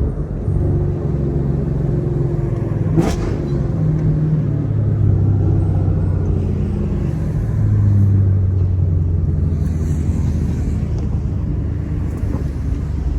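Chevrolet Camaro SS 1LE's naturally aspirated V8 running while cruising, its low note swelling and easing off twice with the throttle. A single sharp click about three seconds in.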